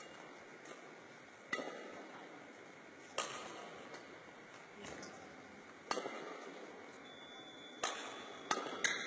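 Badminton rackets striking a shuttlecock in an echoing hall: about six sharp hits at uneven spacing, three of them in quick succession near the end.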